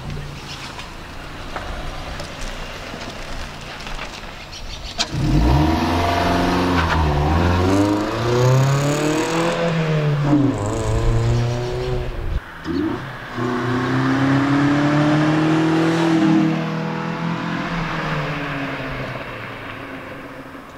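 Chevy Cruze 1.8-litre four-cylinder with a ZZP cat-back exhaust pulling away and accelerating hard. The engine note climbs and drops back several times as it shifts, then holds a long steady note and fades near the end.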